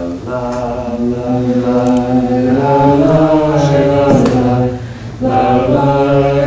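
Voices chanting long held notes: a steady low drone under a slowly moving sung line. It breaks off briefly about five seconds in, then starts again.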